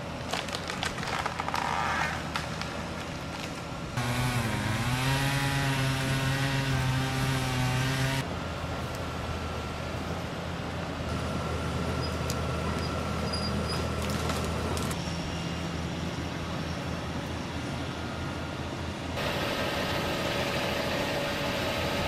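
Tracked hydraulic excavators working with tree-handling heads: the diesel engine runs steadily and revs up and down under hydraulic load, and the sound changes abruptly several times as the footage cuts. Sharp cracks and snaps of wood sound in the first two seconds.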